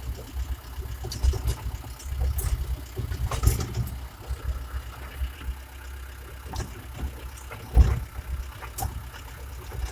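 A vehicle engine running with a steady low rumble, with irregular knocks and rattles throughout. The sharpest knock comes nearly eight seconds in.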